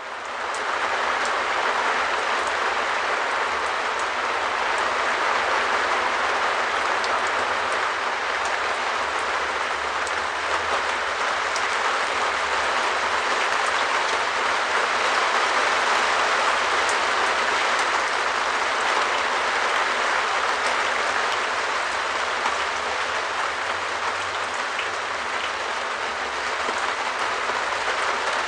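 Rain falling steadily on a shed roof: a dense, even hiss with fine ticks of single drops, swelling in over the first second.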